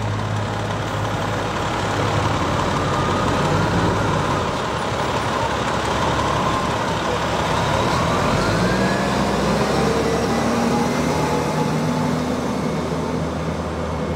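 Heavy fire rescue truck's diesel engine running as the truck drives past, its engine note rising about eight seconds in as it pulls away.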